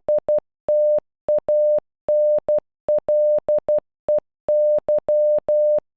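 Morse code audio tone, a single steady mid-pitched beep keyed in short dots and longer dashes, spelling out STANLEY: ... - .- -. .-.. . -.--.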